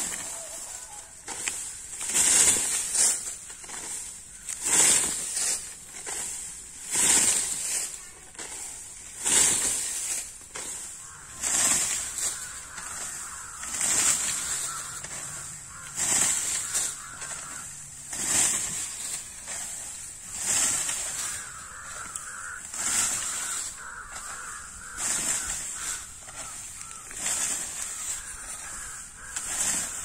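Scythe blade swishing through standing rice stalks in steady strokes, about one every two seconds, each a high rustling swish as the straw is cut and falls.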